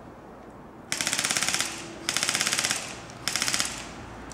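Airsoft gun firing three short full-auto bursts of rapid, evenly spaced shots, the last burst the shortest.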